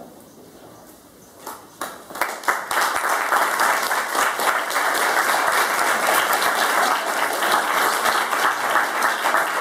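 Audience applauding: a few scattered claps about a second and a half in, quickly building into full, steady applause.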